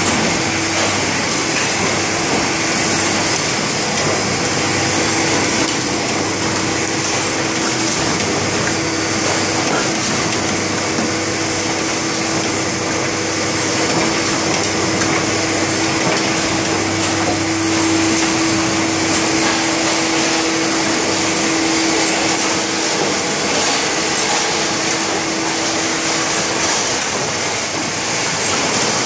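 Stahl BL 200 hardcover bookbinding line running: a loud, steady mechanical whir and hiss, with a steady hum that stops near the end.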